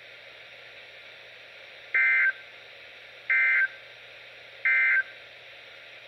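Three short warbling digital data bursts from a Midland NOAA weather radio's speaker, evenly spaced about 1.3 seconds apart, over a faint steady hiss. They are the EAS/SAME end-of-message code that closes a Required Weekly Test broadcast.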